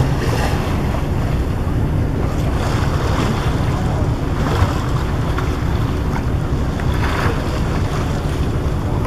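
Ferry crossing: a boat engine's steady low rumble, with wind buffeting the microphone and the rush of water.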